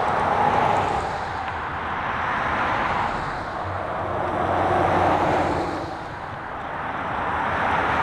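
Cars and pickups passing on a road, their tyre and engine noise swelling and fading several times, while a Toyota Sequoia V8 pulls out and drives off with a low engine hum in the middle.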